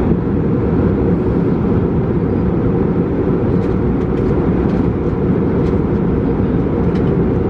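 Steady low cabin noise of an Airbus A319 airliner in flight, an even rush with no change in level.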